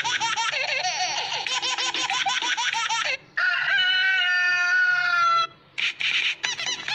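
A funny phone ringtone playing. It opens with a fast run of high, chirping warbles for about three seconds. After a brief break comes one long held call that sinks slightly in pitch, and then a few short bursts near the end.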